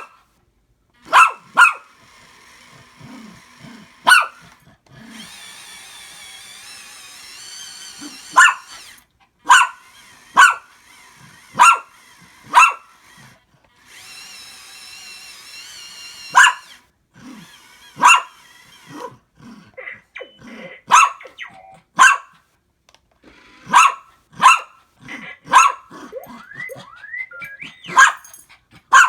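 A dog barking sharply and repeatedly, about twenty barks at irregular intervals. Between the barks come fainter warbling electronic beeps and rising whistles from an R2-style astromech droid toy.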